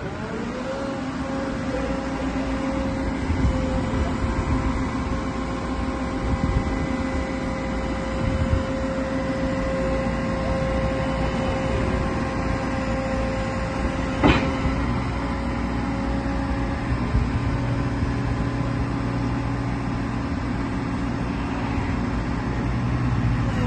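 JLG 4013 telehandler's Perkins diesel engine running steadily with a steady hydraulic whine as the telescopic boom retracts and lowers. A single sharp knock about fourteen seconds in.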